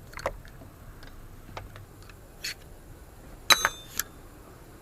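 Light clicks from handling a seatbelt and its retractor mechanism, with a sharp metallic clink that rings briefly about three and a half seconds in and another click just after.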